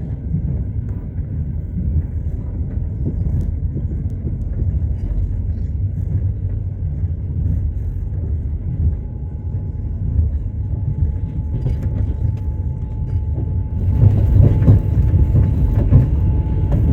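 Passenger train rolling along the track: a steady low rumble of wheels on rails, growing louder and harsher about three-quarters of the way through.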